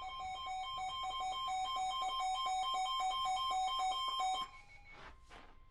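A weather radio's electronic alert alarm: two tones alternate rapidly in a warbling pattern, growing louder, then cut off sharply about four and a half seconds in. It signals that a new National Weather Service warning is about to be read.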